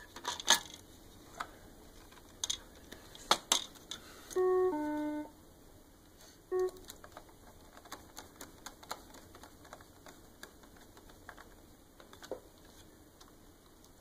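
Hard plastic clicks and snaps as a Roomba 550's brush cage and underside parts are pressed back into place, the sharpest in the first few seconds. About four and a half seconds in, the robot gives a two-note falling electronic beep, then one short beep two seconds later, followed by lighter clicks of handling.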